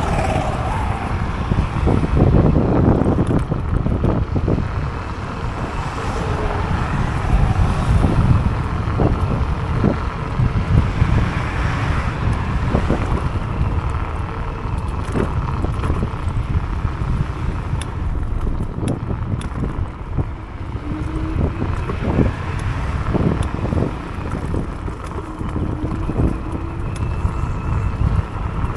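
Wind rushing over the microphone of a moving Teverun Fighter 11 electric scooter, with steady tyre and road noise and scattered short knocks.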